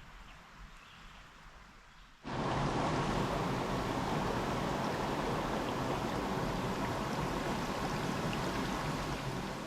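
Rushing creek water, a steady, even rush that begins abruptly about two seconds in after a short stretch of quiet woodland ambience.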